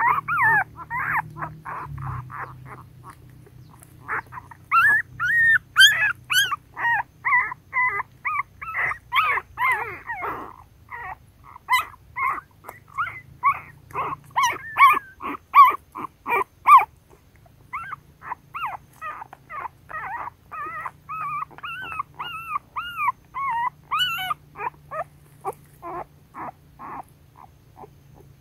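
A litter of young puppies whimpering and squeaking: a rapid run of short, high cries, several a second, with brief lulls a few seconds in and again just past the middle.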